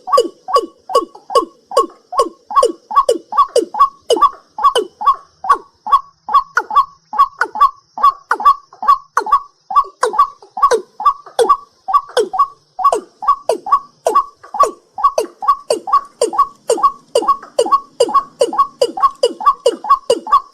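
A night bird calling over and over, short notes that slide down in pitch, repeated evenly about two to three times a second. A faint steady high insect-like hum runs behind.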